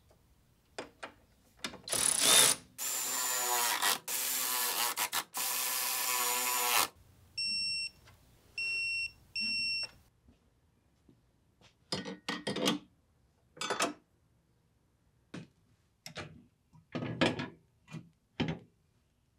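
A power tool runs in several bursts as it drives the strut top-mount nuts. Then a digital torque wrench beeps three times in short pulses as it reaches its set torque. Near the end come scattered metal clicks and clanks of tools and suspension parts being handled.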